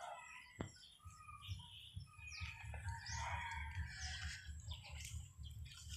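Faint outdoor bird calls: chirps and a rooster crowing, with the calls busiest in the middle.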